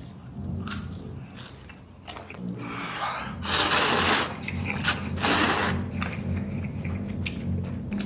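A person slurping noodles from a bowl: a long loud slurp about three seconds in and a shorter one about five seconds in, with chewing in between.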